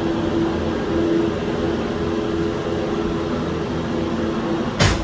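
Steady mechanical running noise inside a Disney Skyliner gondola cabin: a rumble with a low, steady hum. One sharp clack comes near the end.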